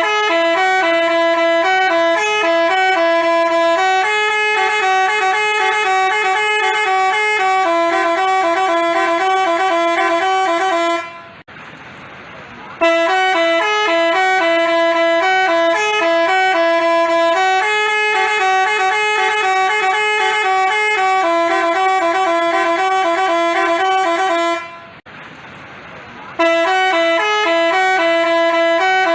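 Basuri telolet bus horn playing a tune of clear, stepping multi-tone notes. The tune runs in long phrases, cut by two brief pauses about 11 and 25 seconds in.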